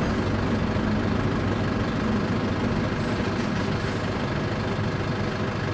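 City bus engine running steadily, heard from inside the passenger cabin along with a constant rumble of cabin and road noise.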